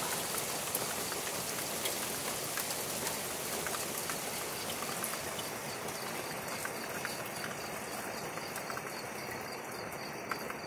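Steady rain falling, an even hiss with scattered drops ticking close by.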